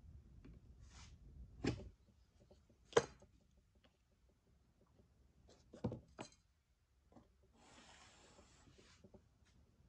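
Hands handling an unfired clay teapot spout on a canvas-covered work table: a few soft knocks and taps as it is picked up and moved, then a brief rubbing sound about eight seconds in.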